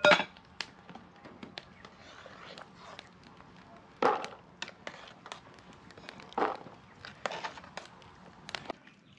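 A spoon knocking and scraping against an aluminium pot and a plastic container as cooked red peas are scooped out: a few sharp clanks a couple of seconds apart, with lighter ticks and scrapes between.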